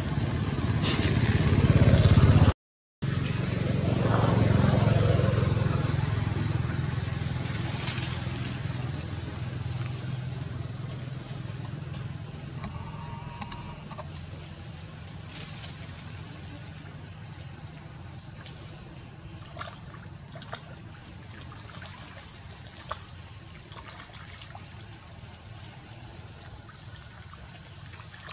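A low outdoor rumble that cuts out briefly about two and a half seconds in, swells again a few seconds later and then slowly fades. Over it are faint water splashes and small taps from long-tailed macaques playing in a shallow muddy puddle.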